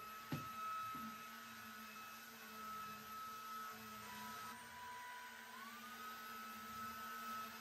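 Cordless stick vacuum cleaner running with a steady high whine over a low hum; the whine drops in pitch about four seconds in and glides back up a second and a half later. Two light knocks near the start.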